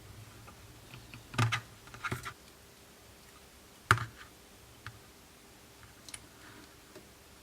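Scattered small clicks and taps of repair tools and small parts being handled on a phone during reassembly, about half a dozen, the sharpest about four seconds in.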